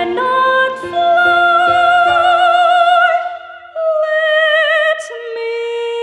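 Female vocalist singing long held notes with wide vibrato over a programmed backing track. The line steps down in pitch twice, and the low part of the accompaniment drops away partway through.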